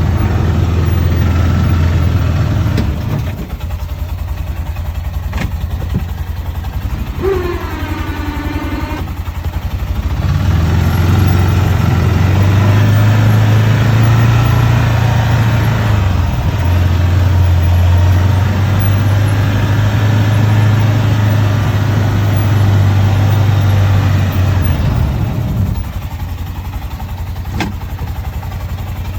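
Arctic Cat side-by-side's engine running while it pushes snow with its front blade. It drops back to a lower idle about three seconds in, works harder again from about ten seconds in with its pitch rising and falling, and eases off again near the end.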